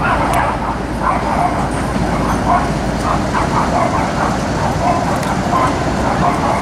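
CSX diesel locomotives leading a mixed freight train, engines running as the train moves slowly during switching. Over the steady rumble comes a string of short, repeated mid-pitched sounds.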